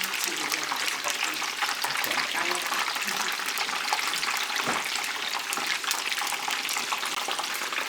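Two battered cod fillets deep-frying in a small pan of hot oil: a steady sizzle with dense crackling.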